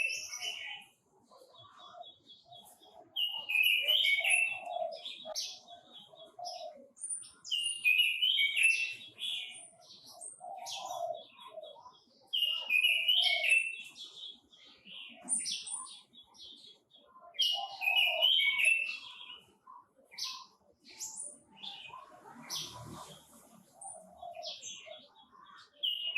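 Quế Lâm songbird singing a repeated phrase of high, rapid notes about every four to five seconds, with short chirps in between. A brief rustle comes near the end.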